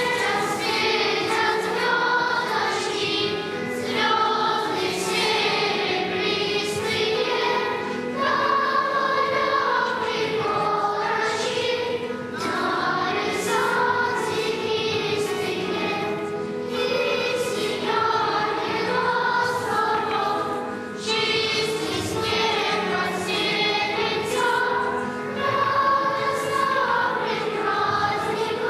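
Children's choir singing a song in phrases.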